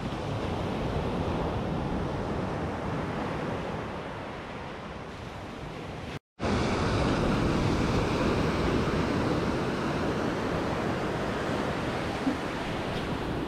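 Ocean surf breaking and washing up a sandy beach, with some wind on the microphone. The sound breaks off briefly about six seconds in and comes back a little louder.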